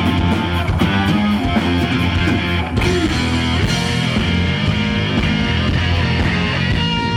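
Heavy metal band playing live: distorted electric guitar over bass and drums. A steady drum beat gives way after about three seconds to more sustained guitar, with bending high guitar notes near the end.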